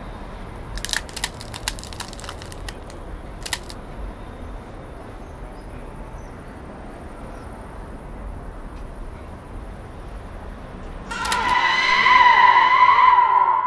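Steady evening city street ambience, broken in the first few seconds by a run of sharp cracking, crunching snaps. About eleven seconds in a loud, wavering, eerie ghost scream sound effect swells up and holds.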